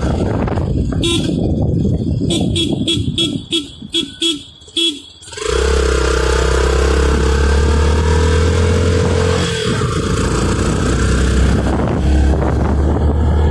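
A vehicle horn beeps in a quick run of short toots over about four seconds. Then loud engine and road noise comes in, with a long steady horn-like note for about four seconds over it.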